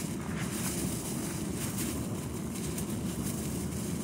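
Wind buffeting the microphone outdoors on open ice: a steady low rumbling noise.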